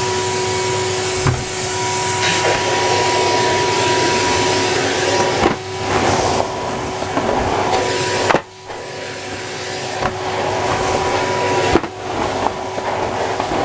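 Numatic Henry HVR200A2 580 W vacuum cleaner running as it sucks up sawdust: a steady rush of air with a motor whine, and small clicks of debris. The sound drops sharply for a moment about eight seconds in, with smaller dips a few seconds either side.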